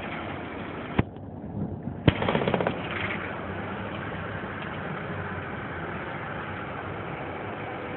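Steady engine and road noise inside a moving city bus, with two sharp clicks about a second and two seconds in, the second followed by a brief rattle.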